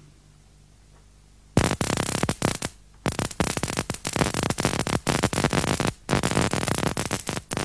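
Induction coil firing big sparks across the spark gap of a Hertz-style radio transmitter: a loud, rapid crackling that starts suddenly about one and a half seconds in, with a brief break about a second later.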